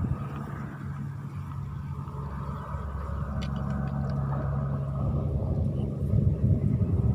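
An engine running steadily, a low even hum, with a few faint short ticks a little after the midpoint.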